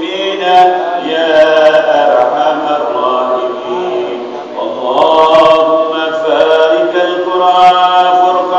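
A man chanting an Arabic du'a (supplication) in a drawn-out, melodic voice, holding long notes, with a short pause about four seconds in.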